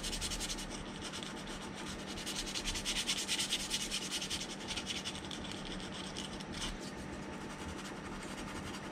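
Hand sanding with 180-grit sandpaper over a puttied seam on a plastic model kit's hull: rapid, steady back-and-forth rubbing strokes of the paper on the putty and styrene.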